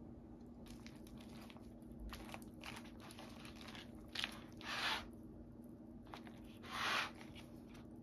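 A wooden spoon stirring a poke bowl of rice, salmon and vegetables in a paper bowl: light scraping and rustling of the food, with two louder swishing strokes about halfway through and near the end.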